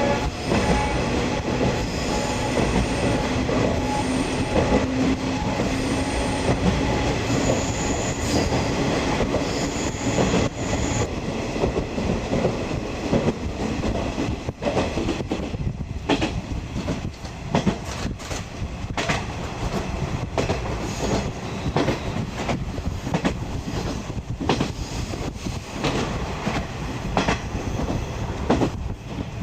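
Series 50 passenger coach running along the rails, heard from inside: a steady rumble of wheels on track, with faint held squealing tones over roughly the first ten seconds. Through the second half, sharp wheel clacks over the rail joints come at a regular beat.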